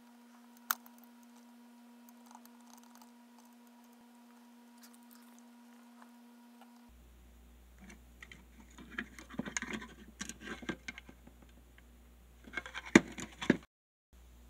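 Near silence with a faint steady hum and a single click for about seven seconds, then handling noise: a white plastic power-meter housing and its circuit board being moved and turned by hand, with rustling scrapes and small clicks and a few sharper clicks near the end.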